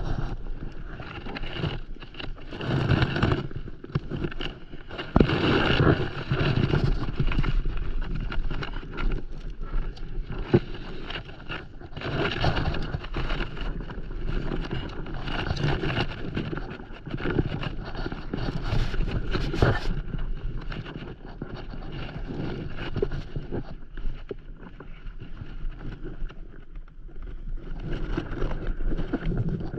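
Rope and gear being handled close to the microphone on a stand-up paddleboard: irregular rustling and rubbing with scattered small knocks.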